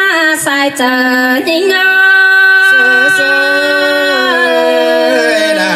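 A woman singing Thai Dam khắp unaccompanied into a microphone: long drawn-out notes, one held for about two seconds, with the melody sinking lower in steps near the end.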